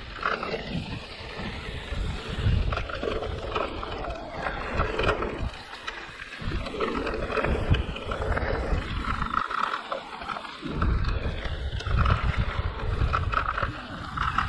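Wind buffeting the microphone as a Giant Reign E+ electric mountain bike rolls down a dirt trail, with knobby tyres rumbling and the bike rattling. The low rumble surges and eases in waves.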